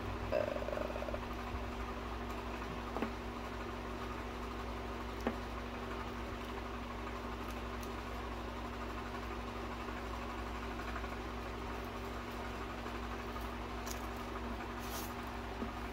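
Steady background hum, with a brief squeak under a second in and a few light clicks and taps as small plastic acrylic powder jars are handled and a jar lid is twisted.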